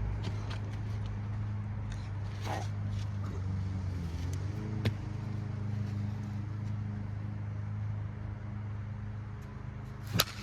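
A steady low engine hum, with two sharp knocks: one about halfway through and a louder one near the end.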